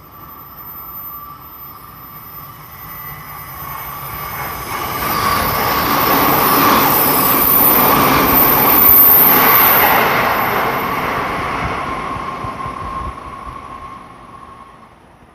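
Tsukuba Express 1000 series electric train running through the station without stopping. The rumble and wheel noise on the rails build up, peak around the middle as it passes close, then fade as it goes away, with a steady high tone throughout.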